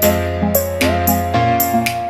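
Instrumental background music: a held, gently moving melody over a steady beat.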